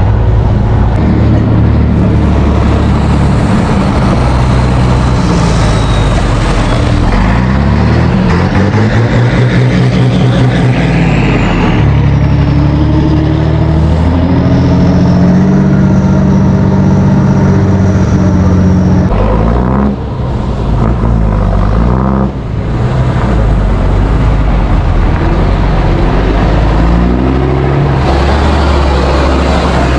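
Heavy diesel truck engines running and revving as trucks move off and drive past, the engine pitch rising and falling. The sound dips briefly twice about two-thirds of the way through.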